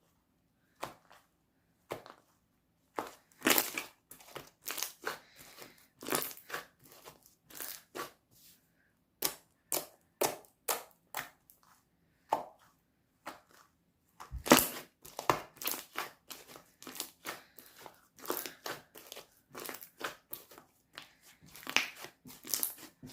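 Slime being squeezed, pressed and pulled by hand, giving irregular clusters of crackles and pops.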